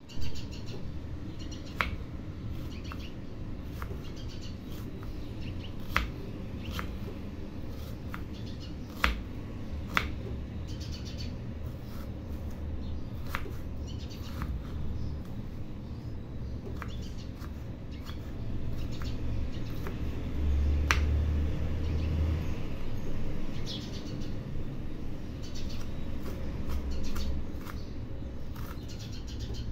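Kitchen knife slicing and then dicing a red onion on a bamboo cutting board: scattered taps and clicks of the blade on the wood, a few of them sharp, over a steady low rumble that gets louder in the second half.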